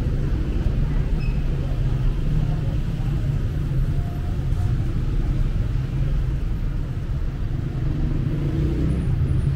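Street traffic noise: a steady low rumble of cars and motorbikes on a busy city road.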